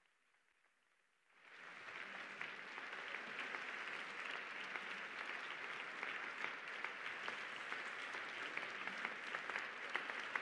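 Near silence for the first second, then applause from a large audience fades in and runs on steadily, individual claps standing out more sharply near the end.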